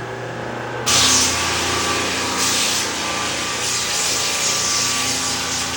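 Floor sanding machine running over a wooden parquet floor: a loud, steady hiss that comes on suddenly about a second in and swells and eases slightly as it works.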